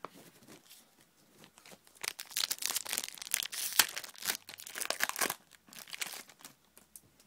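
Foil wrapper of a Pokémon EX FireRed & LeafGreen booster pack being torn open and crinkled by hand, a dense burst of crackling from about two seconds in that stops a little after five seconds.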